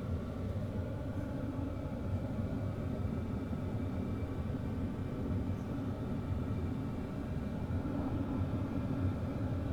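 Sunster portable toolbox diesel air heater running steadily on its first fire-up, its fan and burner giving an even rumble as it blows hot air while it warms up.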